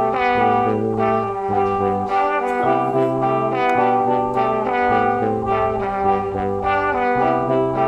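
Background music: a brass-sounding melody over a repeating bass line, notes changing in quick steps.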